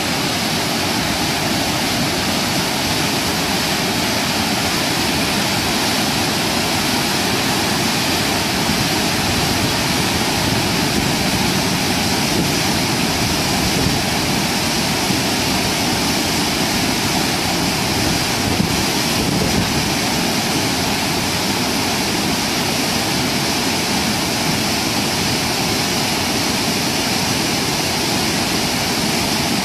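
River water pouring over a concrete weir and churning in whitewater around the bridge piers below it: a loud, steady rush.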